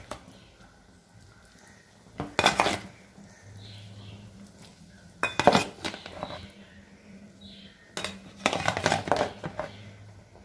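Metal spoon clinking and scraping against a plate and a clay cooking pot in four short bursts of clatter, as marinated tuna pieces are put into the curry.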